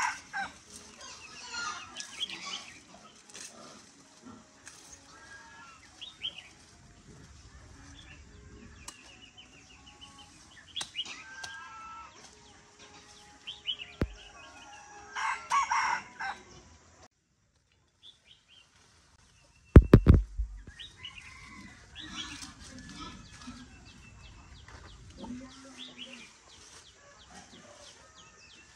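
Chickens clucking, with a rooster crowing loudly at the start and again about halfway through, over small birds chirping. A loud sharp knock comes about twenty seconds in.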